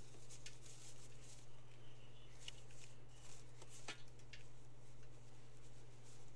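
Soft rustling and scattered light clicks of small objects being handled, over a steady low electrical hum.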